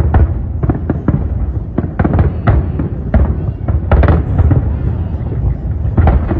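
A fireworks display: many aerial shells bursting in quick, irregular succession, sharp bangs and crackles over a continuous low rumble.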